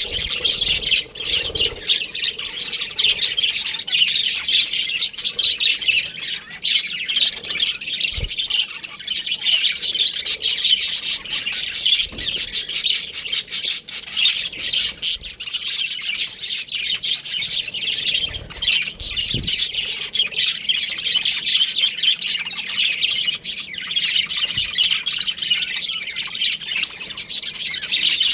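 A flock of budgerigars chattering and squawking, many high calls overlapping without a break.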